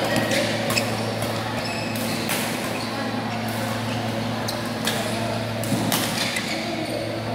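Badminton rally: rackets hitting the shuttlecock in sharp cracks, roughly one every second or so, with a steady low hum underneath.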